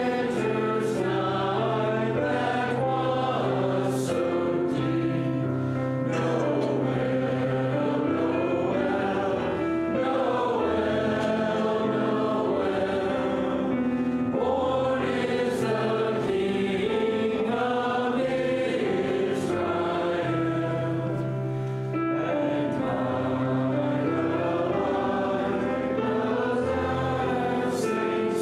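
Congregation singing a hymn together in steady, continuous song.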